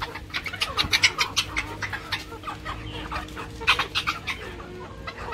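A flock of chickens, including silkies and bantams, clucking while feeding on bare ground. There are many short sharp calls or pecks, busiest at the start and again a little before the end, over a faint steady hum.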